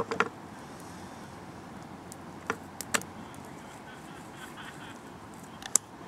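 A few sharp knocks of a knife and cleaver against a wooden cutting board while raw meat is cut: a quick cluster at the start, a couple more about halfway through, and one near the end, over a steady background hiss.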